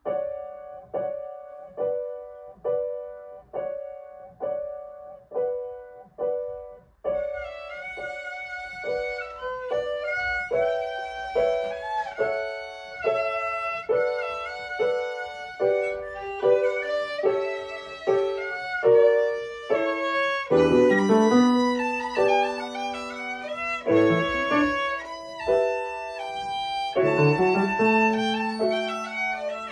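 Violin with piano accompaniment. For about the first seven seconds there is a run of short, evenly repeated notes, each dying away. Then the violin plays a continuous melody over the piano.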